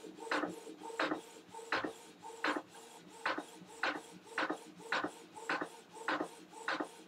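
Printer printing: a steady hum with a regular sharp stroke about one and a half times a second, as the print head makes pass after pass.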